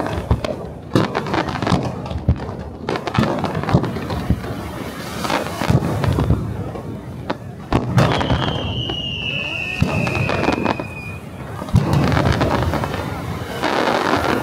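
Fireworks display: aerial shells bursting in quick succession with crackling between the bangs. A long whistle falls in pitch about eight seconds in, and a loud burst comes near twelve seconds.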